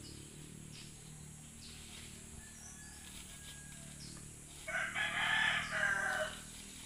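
A rooster crows once, loudly, about five seconds in, the call lasting under two seconds over a low steady background.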